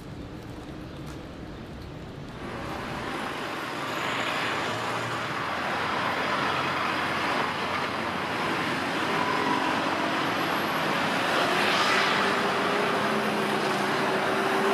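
Street traffic noise from passing cars, coming in about two seconds in and growing slowly louder.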